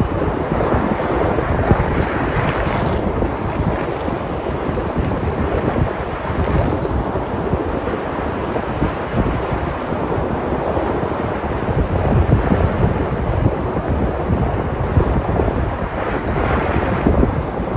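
Sea surf: waves breaking and washing in as a continuous rushing, swelling louder and brighter about two and a half seconds in and again near the end, with wind rumbling on the microphone.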